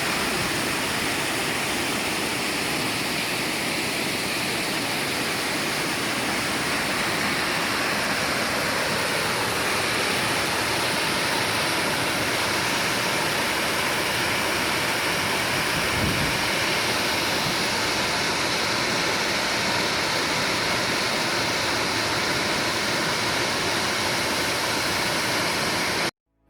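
Mountain valley stream rushing steadily over rocks, with one brief low bump about two-thirds of the way through; it cuts off abruptly near the end.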